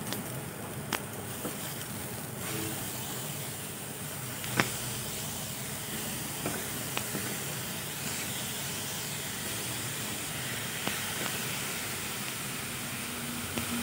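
Grated carrots and sugar sizzling in a non-stick wok as a silicone spatula stirs them, a steady hiss with a few light taps of the spatula on the pan, the loudest a little under five seconds in.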